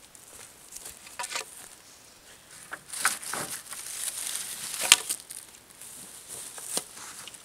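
Thin wooden branches being gathered up and carried in a bundle, rustling and clacking against each other, with footsteps on dry ground. The loudest moment is a single sharp wooden knock about five seconds in.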